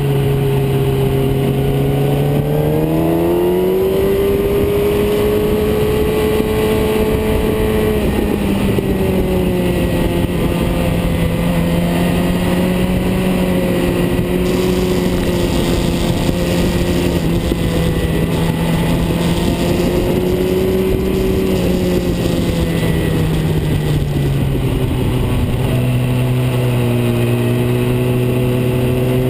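Car engine running as it drives, its revs climbing about three seconds in, holding fairly steady, then falling back near the end, over a steady rush of road and wind noise.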